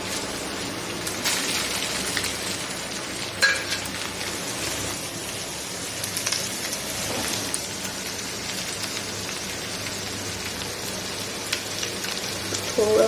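Chicken fried rice sizzling in a frying pan as it is sautéed: a steady hiss with a few light knocks.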